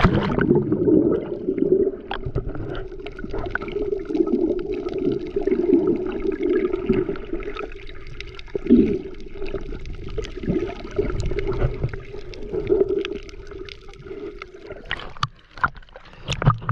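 Choppy sea water sloshing and gurgling close to the microphone around a small boat, with scattered knocks and splashes throughout. The water noise dips briefly near the end.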